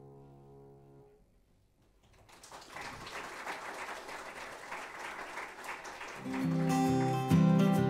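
The final piano chord rings and fades out about a second in; after a short hush, audience applause starts and carries on. About six seconds in, strummed acoustic guitar music comes in over the clapping.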